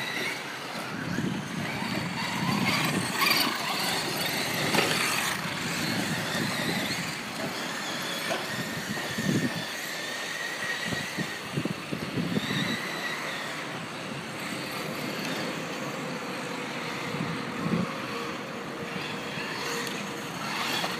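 Radio-controlled monster trucks, a Team Associated Rival among them, racing on dirt: the thin whine of their electric motors rising and falling with the throttle, over the rush and crunch of tyres on loose soil.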